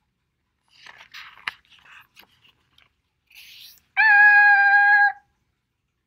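A paper picture-book page being turned, rustling with one sharp crackle, then a loud, steady high-pitched tone held for just over a second near the end.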